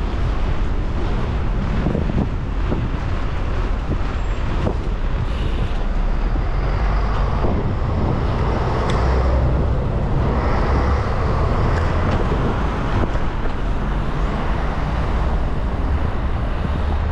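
Wind rushing steadily over the microphone of a bicycle-mounted camera, with the tyres rolling over block paving and road traffic passing.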